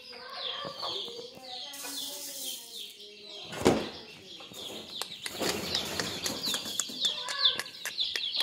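A feeding flock of chickens and pigeons: hens clucking, a constant stream of short high chirps, and wing flapping that rises to a loud flurry about three and a half seconds in and again a couple of seconds later.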